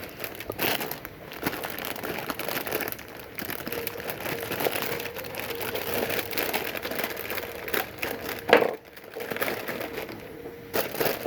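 Crinkling and crumpling handling noise: a dense run of irregular crackles, with one louder crunch about eight and a half seconds in.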